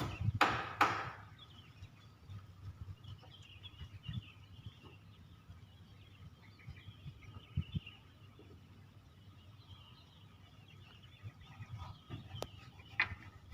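Two sharp knocks in the first second, then faint bird chirping over a low background rumble, with a single sharp click near the end.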